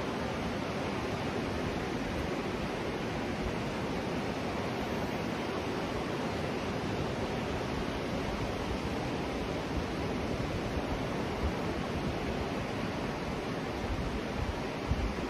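Steady rushing of ocean surf, with a few low bumps of wind on the microphone near the end.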